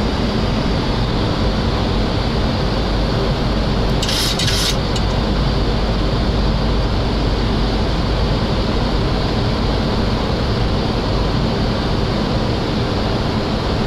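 Steady rush of airflow and engine noise on a Boeing 737 flight deck on final approach, with a brief sharp hiss about four seconds in.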